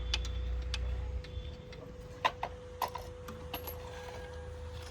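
Sparse light metallic clicks and clinks of spanners being handled during motorcycle repair work. A faint steady hum runs underneath, and a low rumble fades out about a second in.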